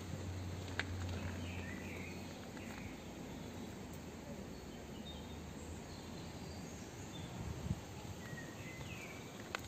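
Faint outdoor ambience with a few scattered bird chirps, a cluster about two seconds in and another near the end.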